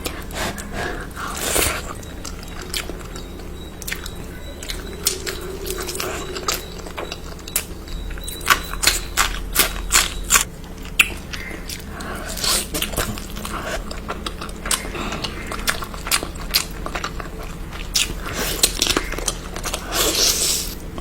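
A person eating: chewing and biting, with many irregular sharp clicks and crunches.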